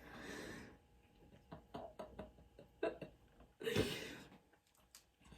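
Faint handling noises: a few small clicks and taps, with two soft breathy exhales, one at the start and one about four seconds in.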